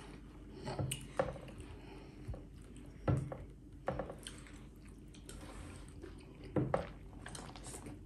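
People chewing soft food eaten by hand, with quiet wet mouth sounds and a few short smacks or clicks; the loudest come about three seconds in and again a little past six seconds.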